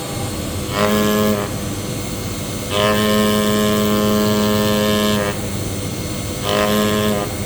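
CNC cutting machine running as it cuts brittle mica sheet: a steady hum with a pitched motor whine that comes in bursts. The whine sounds briefly about a second in, again for about two and a half seconds from around the three-second mark, and briefly once more near the end.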